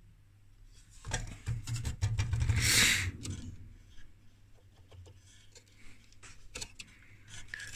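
Handling noise from hands working on a dismantled electronic instrument's metal chassis and wiring: a cluster of clicks and a rubbing scrape between about one and three seconds in, then scattered light clicks.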